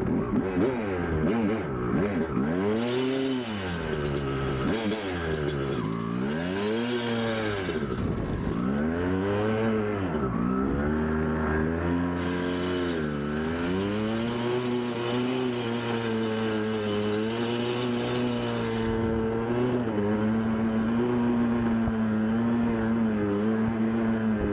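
1999 Kawasaki KX250 single-cylinder two-stroke engine revving up and down every couple of seconds, then running at a steadier pitch with small rises and falls in the second half.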